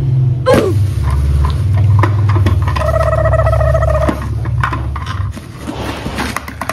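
Paper being torn and crumpled by hand in short crackling rips, over a steady low hum; a short held tone sounds about three seconds in.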